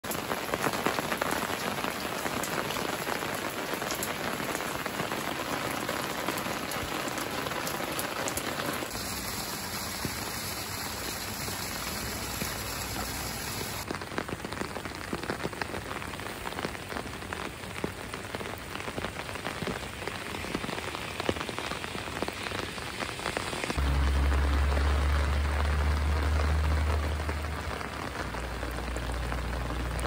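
Steady spring rain falling and pattering on surfaces, a dense, even hiss of drops. About three-quarters of the way through, a low rumble joins in and the sound grows louder for a few seconds.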